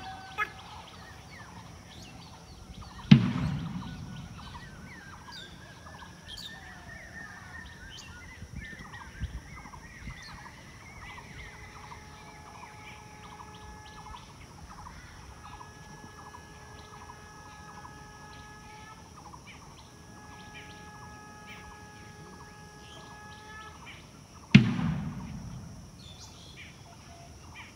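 Outdoor ambience with birds chirping, broken by two sharp thumps, one about three seconds in and another near the end. Through the middle a faint held tone with overtones sounds in several long stretches.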